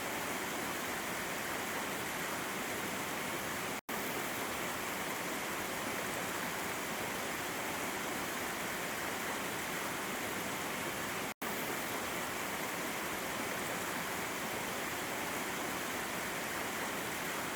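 Waterfall: water flowing and splashing over rocks in a steady, even rush. It cuts out to silence for an instant twice, about four and eleven seconds in.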